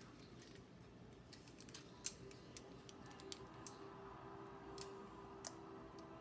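Faint scattered clicks and light crackles from a foil-lined baking sheet being gripped and tilted by hand, with one louder click about two seconds in, over a low steady hum.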